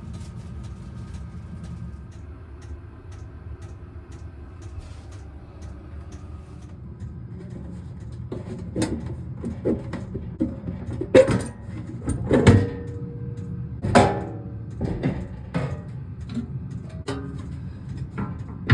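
A steady low hum, then from about halfway a run of irregular knocks and clunks, a few of them ringing briefly.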